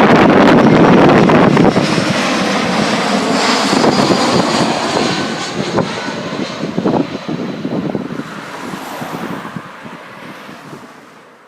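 Jet airliner passing close overhead, its engine noise loud at first and then fading steadily away, with wind buffeting the microphone.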